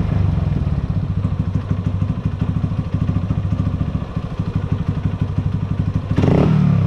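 Carburetted Honda CG Fan single-cylinder four-stroke motorcycle engine idling very low and even while its idle-speed screw is being set, with a short rise in revs that falls back near the end.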